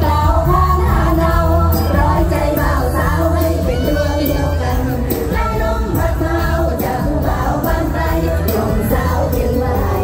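Live Isan mor lam band music played loud through a PA, with a heavy bass line and singing over it.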